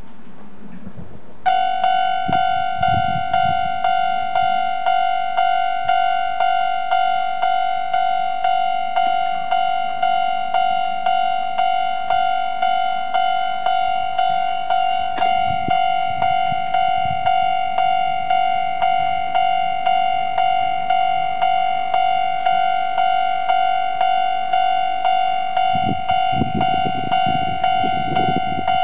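Japanese railway level-crossing alarm bell ringing, a bell tone struck about one and a half times a second, starting about a second and a half in; a low rumble joins near the end.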